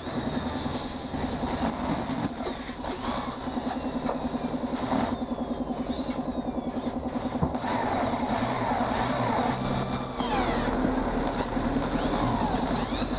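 Electric hand drill running, its 7 mm bit boring into a Honda TMX 155's aluminium crankcase at a cylinder-head stud hole. The cutting lets up for a couple of seconds about five seconds in, then starts again.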